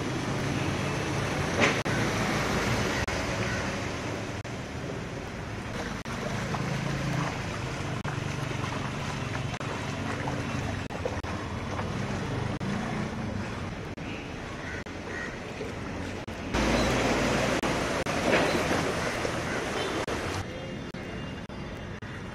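Ambience of a flooded street: a steady rushing wash of water noise with a low engine hum under it. A louder rumbling stretch lasts about four seconds near the end.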